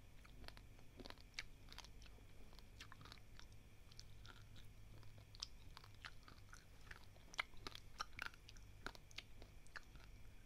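Faint chewing of a mouthful of dry, uncooked basmati rice grains, with many small crunches and cracks scattered irregularly.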